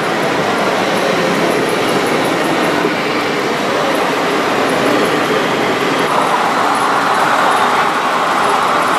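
Remote-controlled model crawler crane driving on its tracks over a concrete floor, a steady clattering rattle of the track links with the drive motors running.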